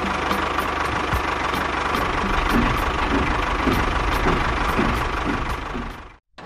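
Tractor engine running steadily, fading out to silence about six seconds in.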